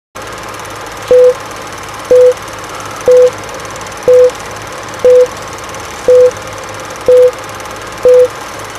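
Old-film countdown leader: a short mid-pitched beep once a second, eight in all, each led by a click, over a steady film hiss. The beeps are the loudest sound.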